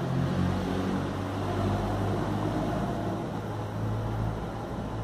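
A steady low mechanical hum over a constant noise, with a few higher overtones that fade after the first few seconds.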